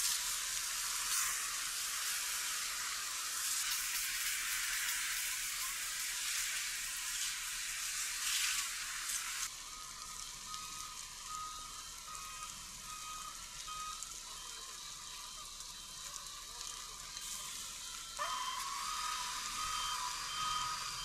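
Burning pine forest crackling and hissing, thin-sounding with no bass. About nine seconds in, the sound changes to a steadier noise with a short electronic beep repeating at an even pace.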